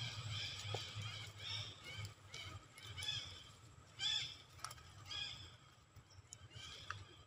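Young long-tailed macaque crying: a string of short, high-pitched cries, about one or two a second, the loudest a little after four seconds in.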